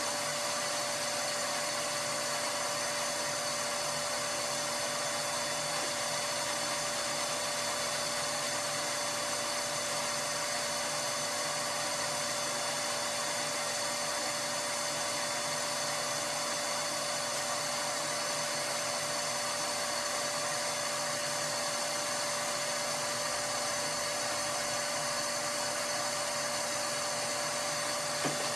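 Small electric motor running steadily, with a constant whine over a hiss.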